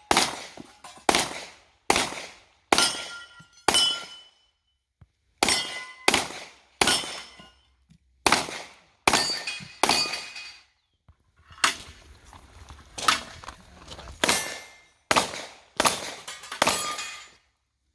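Pistol fired in quick strings at steel targets, about eighteen sharp reports with the plates ringing after many of them, and short pauses about four seconds in and again near the eleventh second.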